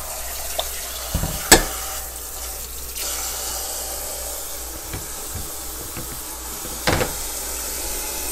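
Kitchen faucet running cold water into the sink in a steady rush, cooling just-cooked food to stop the cooking. A sharp knock about a second and a half in and another near seven seconds.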